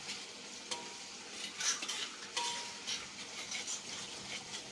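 Sambal chili paste sizzling in a wok while a spatula stirs it, scraping against the pan several times, with a brief metallic ring about a second in and again about two and a half seconds in.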